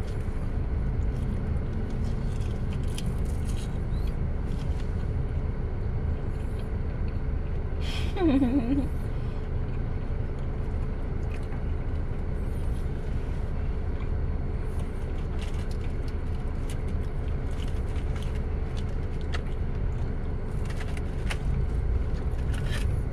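Steady low rumble of a car idling, heard inside the cabin, with faint scattered clicks. About eight seconds in, a man's voice gives one short hum that falls in pitch.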